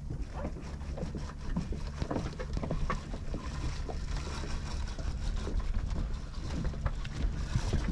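A boat motor idles steadily with a low, even hum, and short knocks and clanks sound now and then over it.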